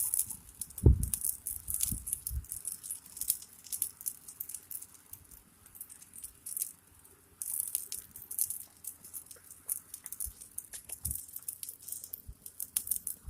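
Fire crackling: a burning heap of matches giving off dense, irregular sharp crackles and pops. There is a dull thump about a second in.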